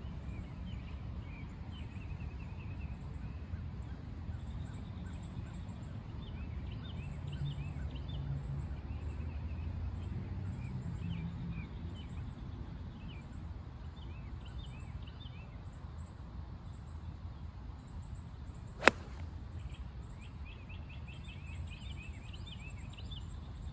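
A single sharp crack of a 4-iron striking a golf ball on a full tee shot, about three-quarters of the way through.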